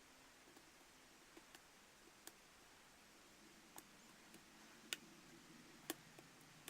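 Faint, irregular clicks of a lock pick working the pins of a challenge padlock under light tension, against near silence.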